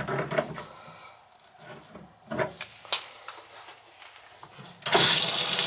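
A few light knocks and clinks on an old two-handle laundry tub faucet, then about five seconds in the tap is opened and water suddenly rushes out into the laundry tub.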